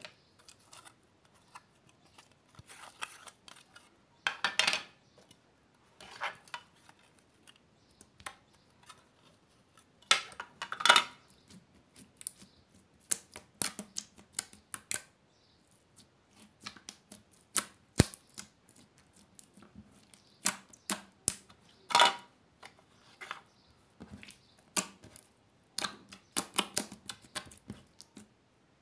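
Glossy slime with foam beads being pressed, poked and folded by hand: irregular sticky clicks and squelches, with louder clusters about four, eleven and twenty-two seconds in.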